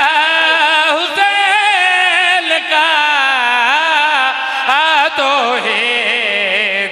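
A man chanting a religious verse in a long, wavering, melismatic melody, the sung style of a zakir's recitation at a majlis.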